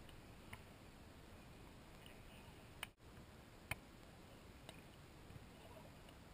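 Near silence on the sand with a few faint sharp taps; the loudest, about two-thirds through, is a beach volleyball being struck on a serve.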